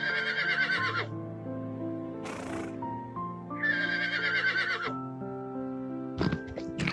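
Horse whinnying twice, each time a wavering call about a second long that falls in pitch, with a short breathy burst between the two. Background music runs underneath, and a few sharp knocks come near the end.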